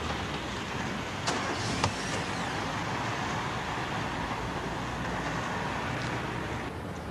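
Steady city street traffic noise, with two sharp clicks about a second and a half in, half a second apart.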